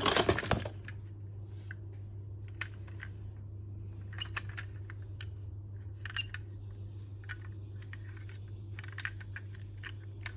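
Light, irregular plastic clicks and taps from toy cars being handled, with a louder clattering rattle at the very start, over a steady low hum.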